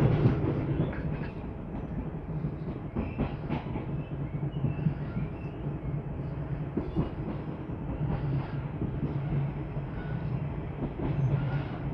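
Passenger train running, heard from inside the carriage: a steady low hum with the wheels clicking over the rails now and then.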